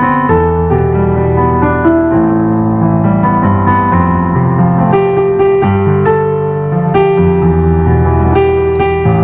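Instrumental keyboard music: slow, soft worship-style piano, or electric piano, playing sustained chords under a melody line.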